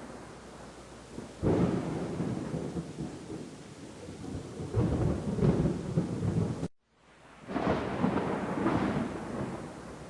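Thunder during a thunderstorm, with rain hissing underneath: a sudden clap about a second and a half in rolls into a rumble, another rumble swells and breaks off abruptly near the middle, and after a moment of silence a fresh rumble comes in and fades.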